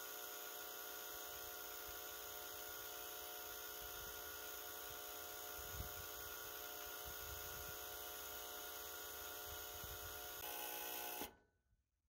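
Heat pump reversing valve's 24-volt solenoid coil buzzing with a steady, terrible hum made of many overtones, the sign that a faulty thermostat is not supplying the coil its proper voltage. It stops abruptly near the end.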